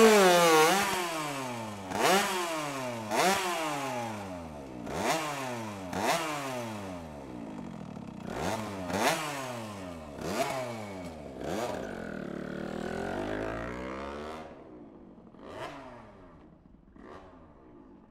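Moped's small two-stroke engine revved hard while the rear wheel spins in a burnout: held high at first, then blipped up sharply and falling back in pitch about once a second, fading gradually toward the end.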